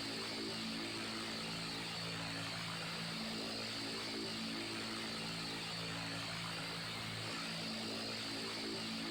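Electric fan running steadily: an even rush of moving air over a low motor hum whose pitch shifts slightly every second or two.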